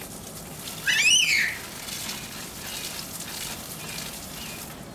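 A young child's short, high-pitched squeal about a second in, rising and then falling in pitch.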